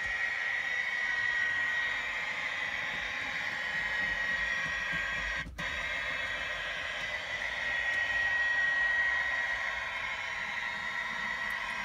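Bachmann Class 57 model diesel locomotive's sound unit playing a steady diesel engine sound, with a brief drop-out about halfway through.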